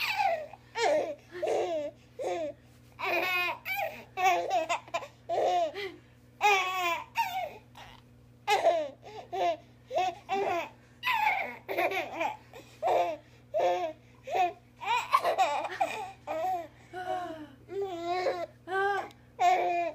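A baby laughing hard in a long run of short, repeated bursts of giggles, with brief pauses between them.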